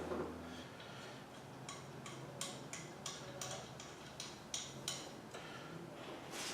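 Faint, irregularly spaced light clicks and ticks, about a dozen over a few seconds, from metal parts of a motorcycle lift being fitted together by hand.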